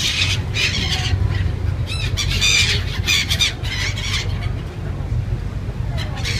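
A flock of gulls calling close by, a string of short harsh squawks that is thickest in the first few seconds, over a steady low rumble.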